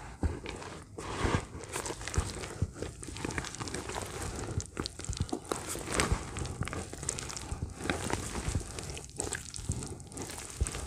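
A hand squeezing and crumbling clumps of grey dirt mixed with water in a metal bucket, making an uneven, continuous run of sharp little clicks and gritty rustles.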